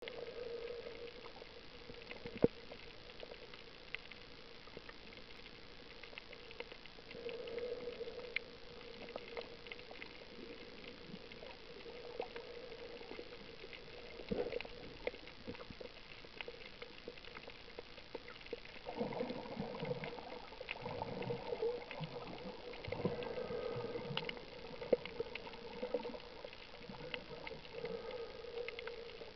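Water heard through an action camera's microphone underwater, muffled: a steady low hum with scattered sharp clicks and crackles, the loudest a single click about two seconds in. From about two-thirds of the way through, louder irregular bubbling and gurgling joins in.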